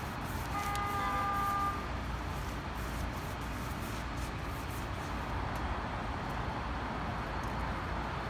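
Steady rumble of city traffic, with a vehicle horn sounding once for about a second near the start.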